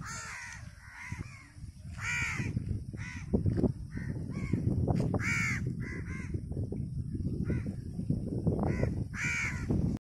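Crows cawing repeatedly, about a dozen short, harsh caws spaced roughly half a second to a second apart, over a steady low rumble. The calls come around a crow chick grounded in a field.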